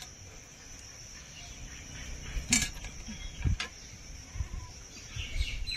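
A few light knocks and clicks from utensils being handled during kebab preparation, over a steady high insect chirr in the background.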